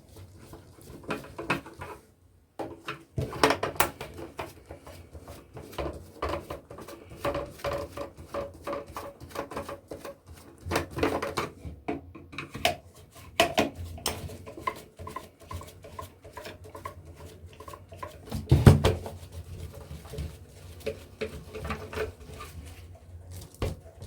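Screwdriver working screws out of a car battery charger's metal casing: a run of irregular clicks, scrapes and small metallic clinks, with a louder knock about two thirds of the way through.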